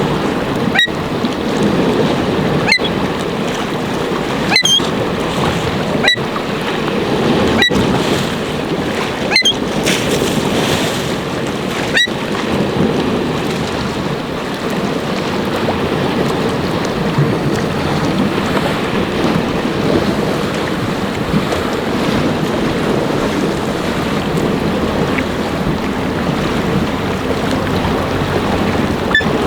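Strong wind buffeting the microphone over waves washing in on Lake Huron, a steady loud rush. A short click recurs about every second and a half through roughly the first twelve seconds.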